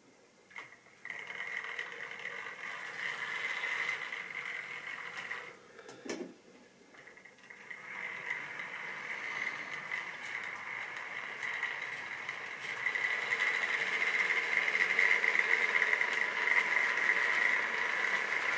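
Model train running on the track: a steady electric-motor whine with wheel rattle. It drops away briefly with a single knock about six seconds in, then comes back and grows louder over the second half.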